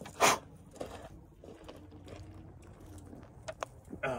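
A person drinking from an aluminium drink can. A loud slurping sip comes about a quarter second in, then quiet swallowing, and a short breathy exhale near the end.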